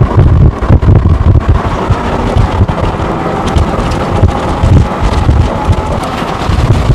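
Strong wind from a nearby tornado, buffeting the microphone in irregular heavy gusts over a steady rushing noise.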